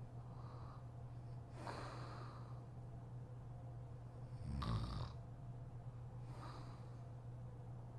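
A woman snoring in her sleep, a breath every two seconds or so, the loudest snore a little past the middle, over a steady low hum.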